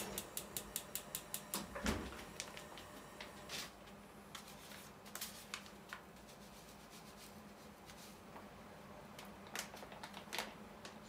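Gas hob igniter clicking rapidly, about five clicks a second, until the burner under the clay donabe lights with a low thump about two seconds in. After that, scattered crinkles and taps of paper packets being handled.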